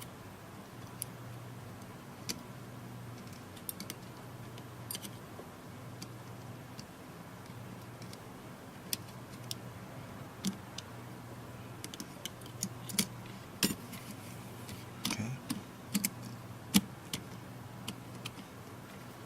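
Scattered small clicks and taps from a tablet's motherboard and tiny screws being fitted into its frame with a small screwdriver. The clicks come closer together in the second half, over a steady low hum.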